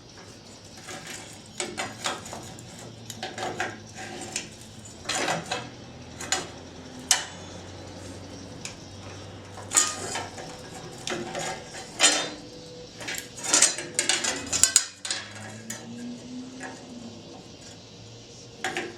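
Irregular metallic clanks, clicks and knocks of steel parts and hand tools being handled and set against a truck frame, some sharp and loud, over a steady low hum.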